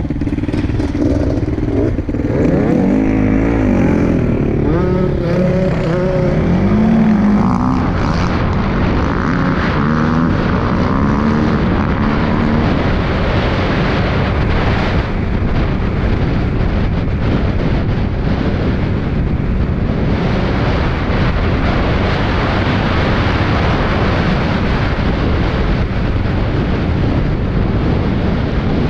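Off-road engines revving, their pitch rising and falling over the first dozen seconds. Then a steady rush of engine noise and wind as the CFMOTO CFORCE 625S ATV rides at speed.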